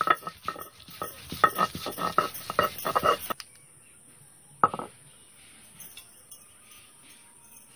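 Stone roller knocking and crushing garlic cloves on a flat stone grinding slab (sil-batta): a rapid, uneven run of knocks and clinks for about three seconds, then it stops. A single sharp clink follows a little over a second later.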